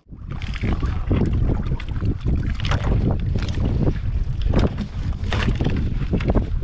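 Wind buffeting the microphone in a steady low rumble, with repeated short splashes of water at the side of a small open fishing boat.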